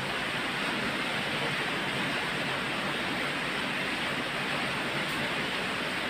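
Electric pedestal fans running, a steady even rush of air.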